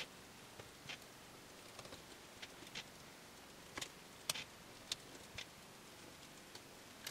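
Irregular light clicks and taps of tweezers and a precision screwdriver handling tiny screws in an open MacBook Pro, about a dozen, with a sharper click a little past four seconds in.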